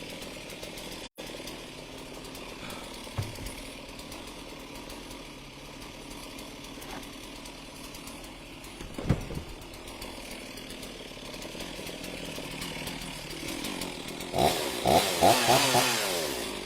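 Chainsaws idling steadily for their monthly warm-up after sitting unused for a month, then revved up and down several times near the end. The sound cuts out very briefly about a second in.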